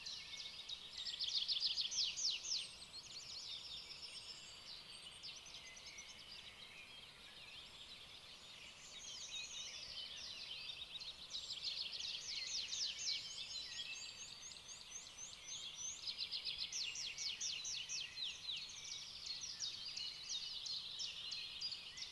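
Birds chirping and trilling: many rapid, high, repeated notes in overlapping runs, faint over a quiet outdoor background.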